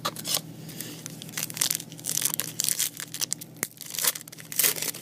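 Foil trading-card pack wrapper being torn open and crinkled by hand: a run of irregular sharp crackles and rips.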